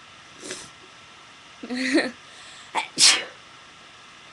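A person sneezing once, sharply, about three seconds in. A short voiced sound comes about a second before it.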